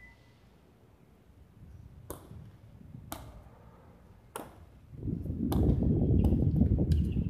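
Sharp cracks of a hard jai alai ball (pelota) striking the fronton's wall and concrete floor, a few times about a second apart. From about five seconds in, a loud low rumble on the microphone drowns out everything but the cracks.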